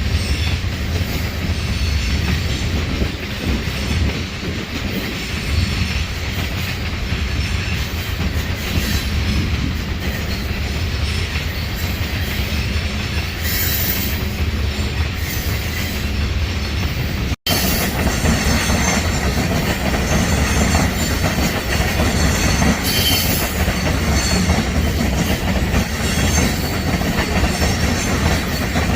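Freight train cars rolling past, a steady rumble of steel wheels on rail with brief higher noise at times. The sound drops out for an instant about seventeen seconds in.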